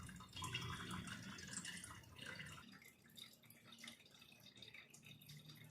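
Faint trickling and dripping of old, dirty oil running out of the drain-screw hole of a Jack F4 industrial sewing machine's oil sump into a bottle. It grows fainter after about two and a half seconds.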